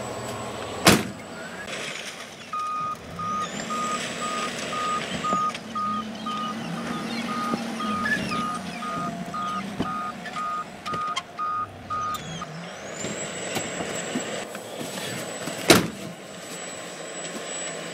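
Electronic warning beeper sounding a steady train of beeps, about two a second, for about ten seconds over a running truck engine. A sharp bang comes shortly before the beeping starts and another a few seconds after it stops.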